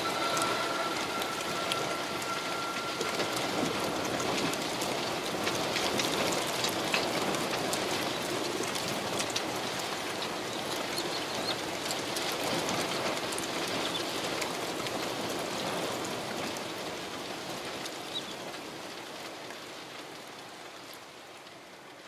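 Heavy typhoon rain falling, a steady hiss with many close drops pattering, fading out over the last several seconds. A faint steady high tone sounds under it for the first few seconds.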